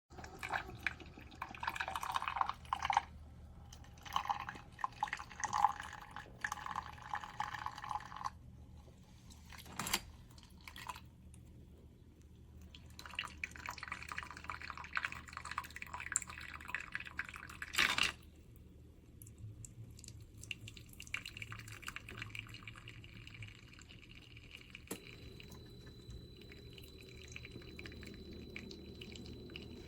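Tastyle single-serve pod coffee maker brewing: a steady low pump hum under irregular dripping and spattering as hot coffee runs into the cup, with two sharp clicks about ten and eighteen seconds in.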